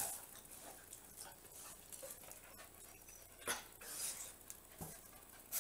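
Faint sounds of a Pumi dog moving and panting, with a few soft taps in the second half.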